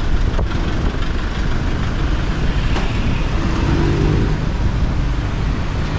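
Busy street traffic: motorbike and car engines running and passing close by. A steadier engine hum sets in about halfway through.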